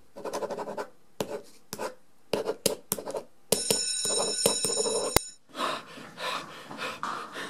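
A pen scratching on paper in short, irregular strokes. About three and a half seconds in, an electric school bell rings with a fast rattling tone for about a second and a half and cuts off with a click. Panting breaths follow.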